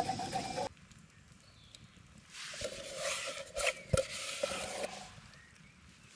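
A stick scraping the bottom of a metal pan of boiling water on a campfire, with sizzling and a couple of sharp knocks against the pan midway; the scraping lifts off food stuck to the pan.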